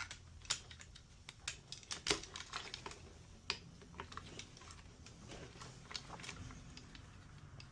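Irregular small clicks and taps of plastic wire connectors being handled and unplugged on an espresso machine's control board, thickest in the first few seconds and sparser after.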